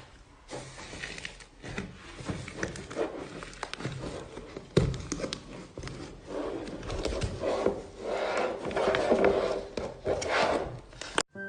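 Slime being pressed and worked by hand, its dried crust crackling and crunching in many small irregular pops and clicks, with wet rubbing underneath; busier and louder in the second half.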